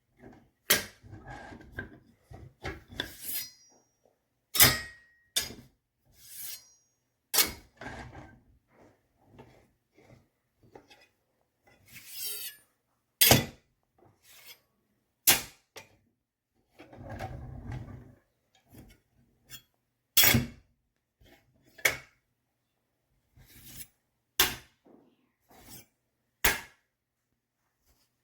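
Steel kitchen knives being put into a magnetic wooden knife block: more than a dozen sharp clacks at uneven intervals as blades and handles knock against the wood, with sliding and rubbing between them.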